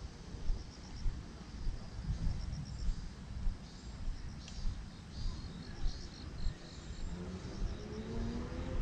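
Crickets chirping in short, evenly repeated pulses, over the low rumble and regular thuds of footsteps on a paved path.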